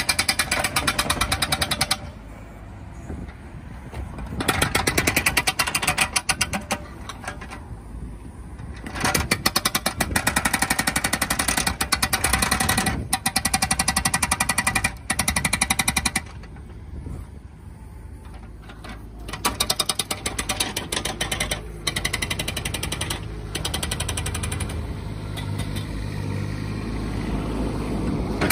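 Demeter 85 hydraulic breaker on a Bobcat E19 mini excavator hammering in several bursts of rapid blows, each a few seconds long, breaking up street paving. Between the bursts the excavator's diesel engine keeps running.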